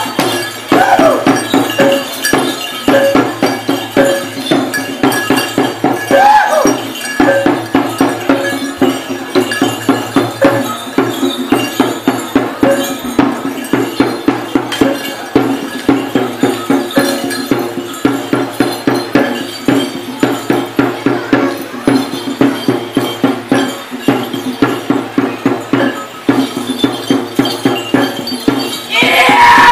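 Kabasaran war-dance music: a drum beaten in a steady, fast rhythm over a ringing gong tone. A short shout rises above it about six seconds in.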